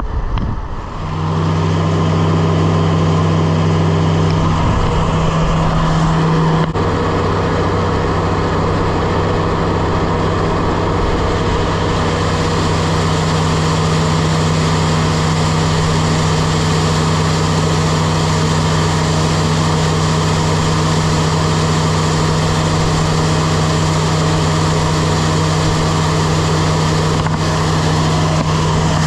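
Grain vac running under engine power, a loud steady machine drone with a strong low hum. It comes up to speed about a second in and settles to a slightly different pitch around six seconds in.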